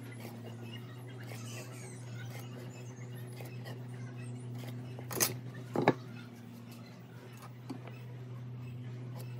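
Light scratching and tapping of a pen and steel square marking lines across a wooden beam, over a steady low hum. Two sharp knocks come a little past halfway, with a smaller one near the end.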